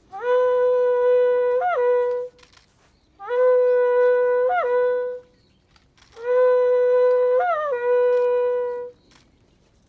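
Three long blasts on a horn-like wind instrument, each held on one steady note for two to three seconds with a short upward flip of pitch near its end before settling back; the last blast is the longest.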